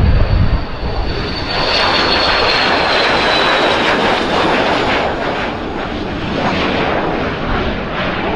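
Twin-engine business jet taking off at full thrust: a high turbine whine that slowly drops in pitch over the first few seconds, under a rushing jet roar that swells about a second and a half in and holds as the jet lifts off.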